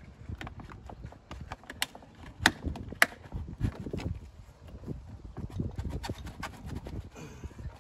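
Hard plastic knocks, clicks and rubbing as the ribbed plastic air-intake duct of a Mini Cooper Clubman (R55) is worked back onto the engine by hand. Two sharper clacks come about two and a half and three seconds in.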